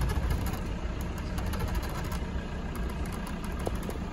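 Engine of a safari game-drive vehicle running at a steady low rumble, heard from inside the vehicle.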